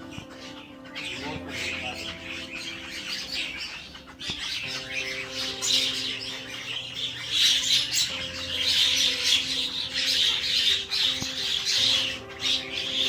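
Many birds chattering and squawking together, growing louder after about five seconds, over background music with held notes.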